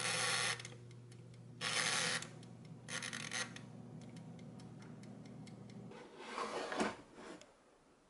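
Air fryer's mechanical timer knob turned in three short ratcheting rasps while the fryer's fan runs with a steady low hum. About six seconds in the hum stops and the basket slides out with a scrape.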